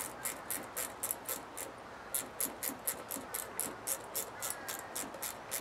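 Ratchet wrench clicking in quick back-and-forth strokes, about four a second, while running a bolt in by hand.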